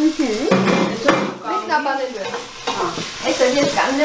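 Chopped onion sizzling as it fries in vegetable oil in a stainless steel pot, stirred with a wooden spoon.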